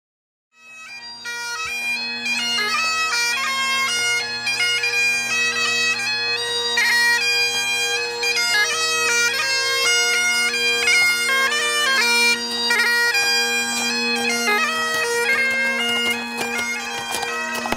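Highland bagpipes playing a tune: a chanter melody over steady, unchanging drones, starting about half a second in.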